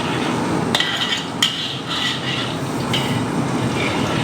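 Metal kitchen utensils clinking and scraping against a pot, with two sharp knocks about a second apart, over a steady hiss.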